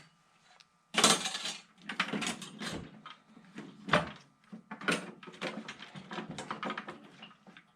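Metal hand tools and loose sockets clinking and rattling as toolbox drawers are handled, with a string of sharp knocks, the loudest about a second in.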